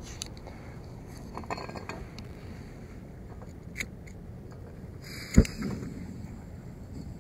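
Small clicks and knocks of camp gear being handled over steady wind rumble, then one loud sharp click about five seconds in as the camp stove is lit, with a steady hiss after it.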